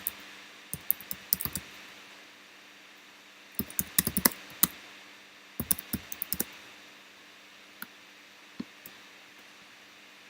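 Typing on a computer keyboard: three short bursts of quick keystrokes, then a couple of single clicks near the end.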